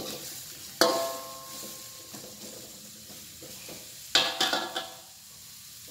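Metal spatula stirring vegetables and tempe in a wok over sizzling oil. It strikes the pan with a ringing clang about a second in, and again about four seconds in with a few quicker knocks after it.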